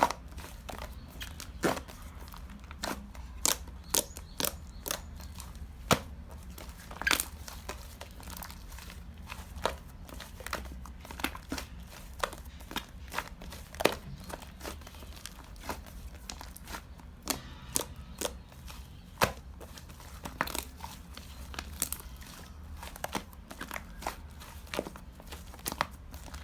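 Yellow slime being pressed, folded and stretched by hand, making irregular sharp popping clicks about once or twice a second.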